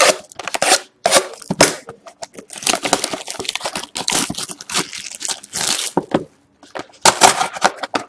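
A sealed hobby box of hockey cards being torn open by hand, its wrapping and cardboard crinkling and tearing in irregular bursts with short pauses.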